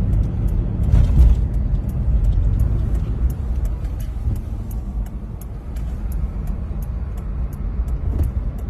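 Steady low rumble of a motor vehicle, loudest about a second in and easing off after the middle, with faint high ticks repeating about three times a second.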